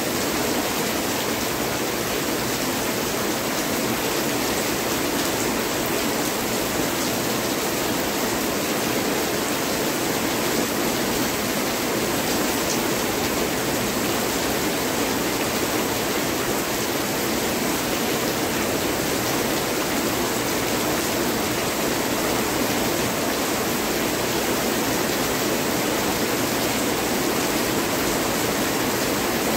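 Heavy rain pouring down steadily, a dense, even hiss that holds the same level throughout.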